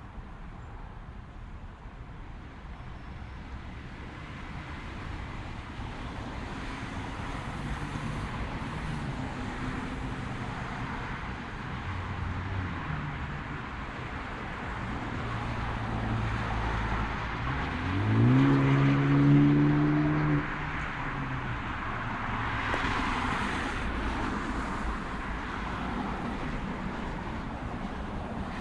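Roadside traffic: a car's engine comes up and rises in pitch as it accelerates, loudest a little past the middle before dropping away suddenly, followed by the hiss of tyres as another vehicle passes.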